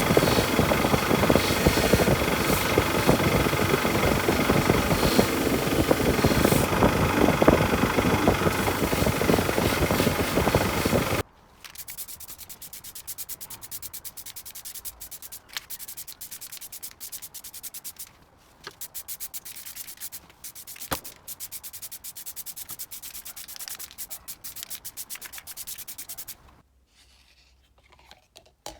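Abrasive work on the vise's metal parts: a loud, steady grinding hiss for about eleven seconds that stops abruptly, followed by a much quieter rasping made of many fine rapid clicks with a few short breaks.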